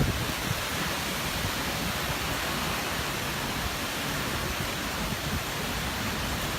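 Steady rushing noise of a tropical storm's strong wind and rain.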